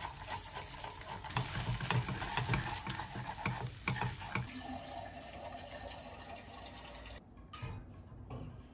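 Eggs frying in a frying pan while wooden chopsticks stir and scramble them, the sizzling hiss broken by many quick clicks and scrapes of the chopsticks against the pan. The stirring eases after about four and a half seconds, and the sound drops suddenly a little after seven seconds.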